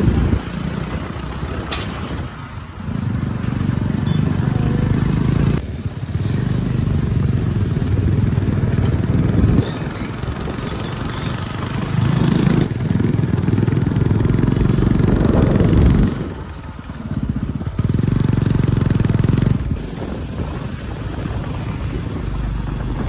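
Diesel engines of JCB 3DX backhoe loaders working, the engine note loud and low, stepping up and down in level every few seconds as the machines dig and load.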